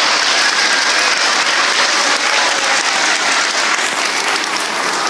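An assembly audience of elementary school children applauding steadily, a dense patter of many hands clapping.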